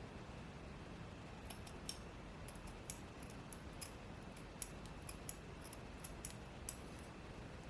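Scissors snipping through the lace of a wig: a string of quick, crisp, irregular snips starting about one and a half seconds in.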